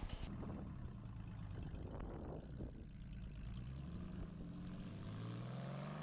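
An engine running steadily, then its pitch rising near the end as it revs up.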